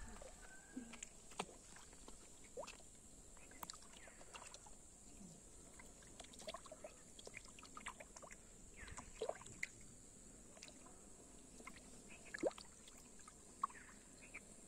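Quiet pond ambience: faint, scattered small plops and ticks at the water's surface over a steady high hiss.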